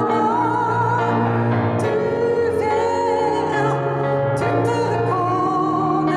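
A woman sings a French song into a microphone, holding long notes with vibrato, accompanied by a keyboard piano.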